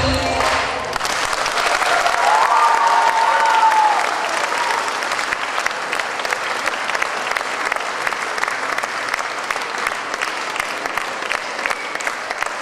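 Large audience clapping steadily after the music stops, with a short cheer about two seconds in.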